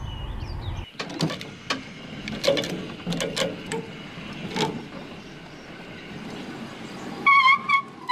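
Low vehicle rumble for about the first second, then scattered metal clanks and clicks from the trailer's hand winch and cable as a small homemade steam locomotive is unloaded. A wavering fiddle-like tune comes in near the end.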